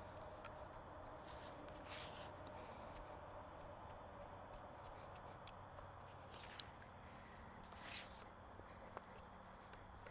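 Faint crickets chirping in a steady, even rhythm of short high chirps, a few each second. A few soft scuffs are heard, about two, six and a half and eight seconds in.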